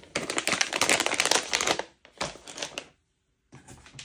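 Plastic-foil pigment pouches from a Formlabs Color Kit crinkling as they are handled and stood upright against one another. The crinkling is densest in the first two seconds, comes again briefly, and stops dead for about half a second near the end.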